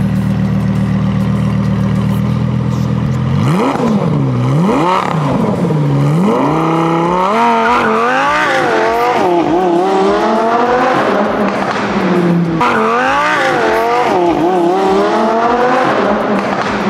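Lamborghini Huracan Evo's V10 through a straight-piped Soul Performance titanium exhaust, with no muffler or cats. It idles steadily for about three seconds, then revs hard, its pitch climbing and dropping again and again as the car pulls away.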